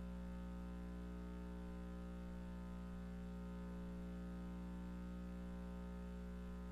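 Steady electrical mains hum with many overtones, unchanging throughout.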